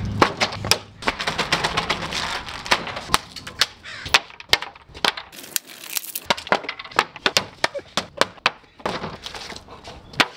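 Sharp cracks and knocks in quick, irregular succession, several a second: wooden blocks and other objects thrown at a bag, hitting a board and a wooden fence.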